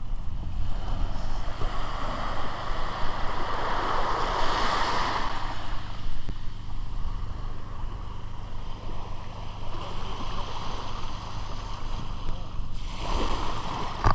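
Small waves lapping and washing up on a sandy beach, over a steady low rumble, with louder washes about four seconds in and again near the end.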